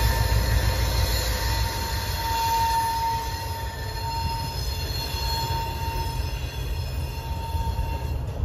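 Train rolling past with its wheels squealing: a high, steady squeal that swells and fades over a low rumble.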